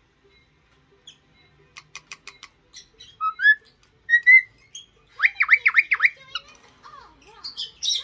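Cockatiel whistling and chirping at its reflection in a mirror: a quick run of clicks, then two rising whistled notes, then five fast chirps in a row followed by more short calls.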